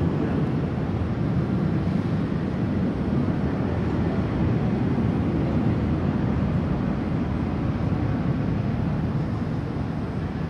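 Twin-engine widebody jet's engines running at high power as it speeds down the runway, a steady low rumble heard through terminal glass that fades slowly near the end as the aircraft pulls away.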